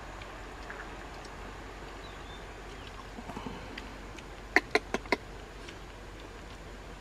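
Steady outdoor background hiss with scattered faint ticks, and a quick run of four sharp clicks a little past the middle.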